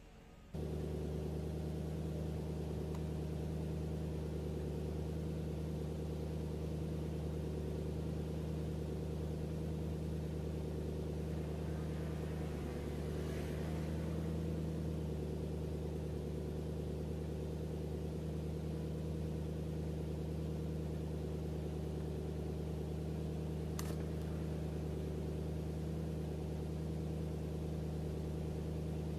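Electric woodworking machine motor running steadily at constant speed, starting abruptly about half a second in. There is a brief rougher patch about halfway through and a single sharp click near the end.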